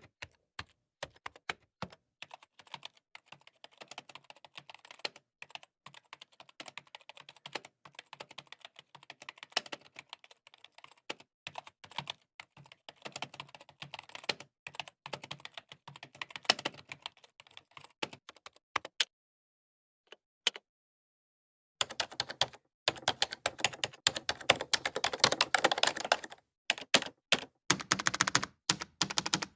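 Computer keyboard typing: a rapid, irregular run of key clicks. A short pause about two-thirds of the way in, then faster, louder typing.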